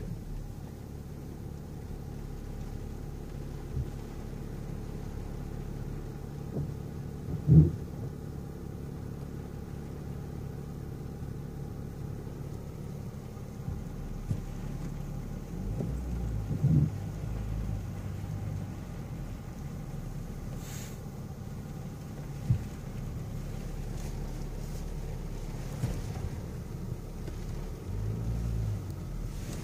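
Low engine hum and rumble heard inside the cabin of a BMW X6 creeping through muddy ruts, with a few sharp thumps as it goes over the rough track, the loudest about seven and a half seconds in.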